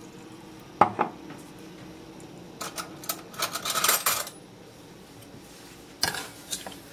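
Kitchenware clatter in a stainless steel saucepan of sugar and water: two sharp knocks about a second in, a run of clinking and scraping around the middle, and a metal spoon clinking against the pan near the end as the syrup mixture is stirred.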